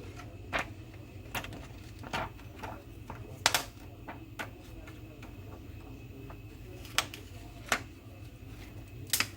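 Irregular small clicks and taps of hand tools against a Samsung J6 phone's parts during disassembly, about ten in all, the loudest about a third of the way in and near the end, over a low steady hum.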